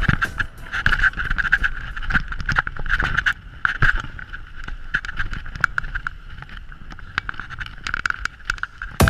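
Mountain bike coasting down a rough trail: the rear freehub gives a buzzing ratchet that comes and goes, with rattling clicks and knocks from the bike over bumps and wind rumble on the microphone.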